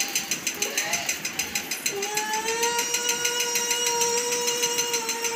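Fast, steady clicking, about seven clicks a second, like a ratchet. From about two seconds in, a voice holds one long high tone over it.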